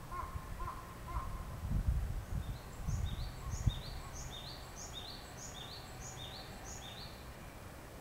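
Japanese tit singing its two-note phrase, repeated about eight times at a steady pace of under a second each, starting a second or so in. A low rumble underneath peaks with a thump near the middle.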